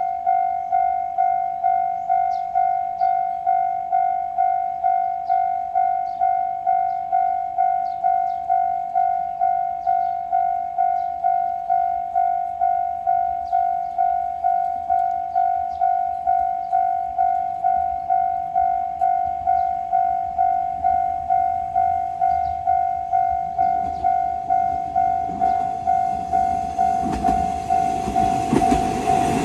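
Japanese railroad crossing alarm ringing its electronic 'kan-kan' bell, a steady repeating tone at about two strikes a second. In the last few seconds a passing train's rumble grows loud under the bell.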